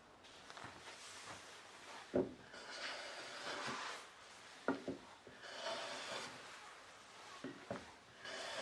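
Japanese hand plane (kanna) taking two smooth strokes along a wooden board, each a hissing swish lasting over a second, with light wooden knocks as the plane is set down and lifted: test cuts after the blade has been adjusted.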